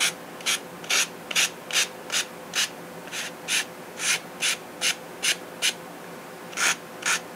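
80-grit sandpaper rubbed by hand over a small, soft balsa wingtip block in short strokes, about two a second, pausing for about a second near the end.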